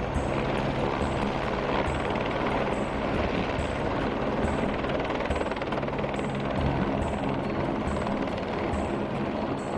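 Helicopter hovering overhead with a load slung on a long line, its rotor and engine running steadily.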